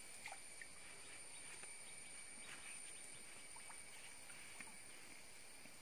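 Faint steady drone of insects, with a few soft, short clicks scattered through it.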